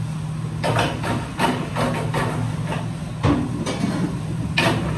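Commercial kitchen clatter: a string of sharp metal clanks and knocks, about ten in five seconds, over the steady low hum of the extractor hood.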